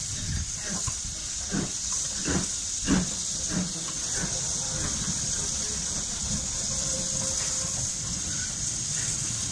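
USATC S160 2-8-0 steam locomotives pulling away with a train. Exhaust chuffs come from the chimney a little over half a second apart for the first few seconds, over a steady hiss of steam. Then the chuffs give way to a low, steady rumble as the train rolls past.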